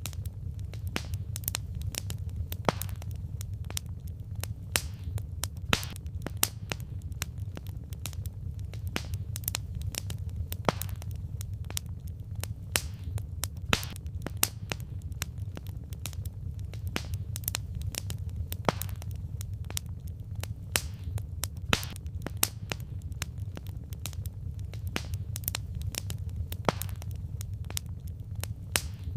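Wood campfire crackling: irregular sharp pops and snaps of burning logs, several a second, over a steady low rumble of the flames.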